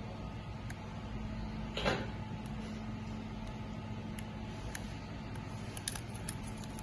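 Hand work on a fusion splicer's casing and parts: a brief scrape about two seconds in and a few light clicks near the end, over a steady low hum.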